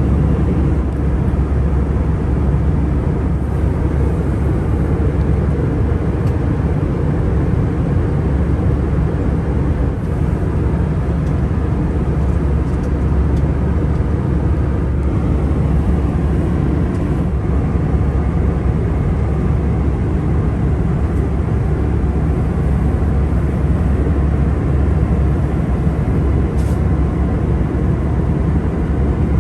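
Airbus A319 cabin noise in flight: a loud, steady rumble of the engines and rushing air, deepest in the low end, with no change in level.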